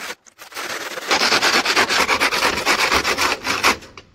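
Hand saw rasping through a block of corrugated PVC cooling-tower fill with quick back-and-forth strokes, loudest from about a second in and stopping shortly before the end as the cut piece comes free.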